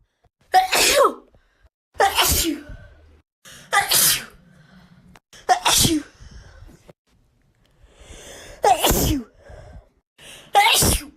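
A young woman sneezing from allergies, six loud sneezes in a row about every two seconds, with a longer pause before the fifth and faint breaths in between.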